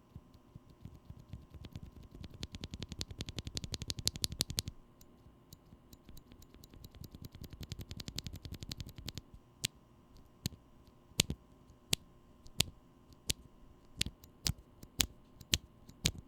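Glorious Panda tactile mechanical keyboard switch being pressed, fully lubed with Krytox including its leaf spring: a fast run of clicks for the first few seconds, a second slower run, then single keystrokes about one or two a second.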